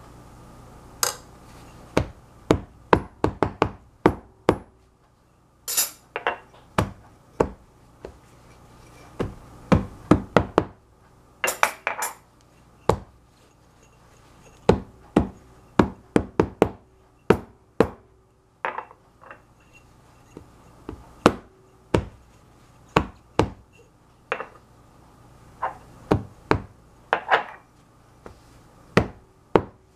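Small glass jar of chocolate mousse knocked down again and again on a folded kitchen towel over a tiled counter to flatten and settle the mousse: dull knocks in quick runs of several strokes, with a few sharper glass clinks among them.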